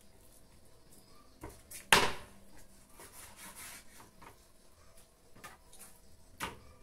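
Knife chopping and cutting raw chicken on a wooden cutting board: one loud knock about two seconds in, then lighter knocks and handling sounds.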